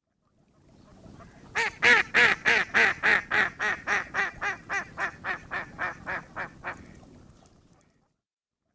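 Duck quacking: a run of about seventeen quacks, roughly three a second, loudest at the start and growing fainter toward the end.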